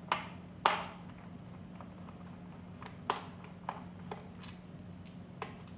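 Small sharp clicks and taps of a screwdriver working the screws out of a laptop's plastic bottom case, about seven spread irregularly, the loudest two in the first second, over a faint steady hum.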